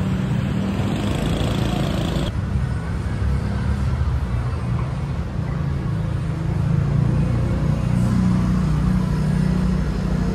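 Steady road-traffic noise with a low engine hum. The sound changes abruptly about two seconds in.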